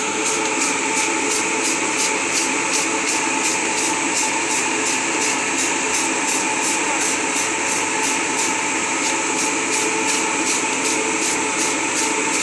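Inline centrifugal duct fan running steadily: a constant rush of air over a motor hum, with a faint high pulsing about three times a second.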